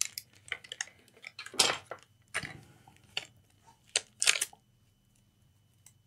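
Small tools being handled on a repair bench: a run of light clinks and taps, with a few sharper knocks about a second and a half, two and a half and four seconds in, dying away after that.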